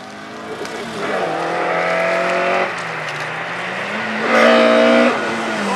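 Hatchback rally car's engine revving hard as the car accelerates through a corner toward the listener. The revs climb, drop sharply about halfway through as the driver lifts or shifts, then climb again louder and fall away near the end.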